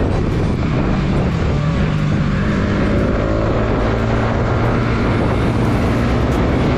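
Bajaj Pulsar NS200 single-cylinder engine running under way, its pitch rising and falling with the throttle, over steady wind noise.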